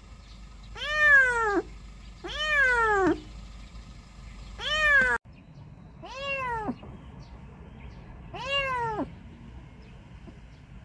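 A kitten trapped in a drain meowing five times, each cry rising and then falling in pitch: the distress calls of a kitten that cannot get out.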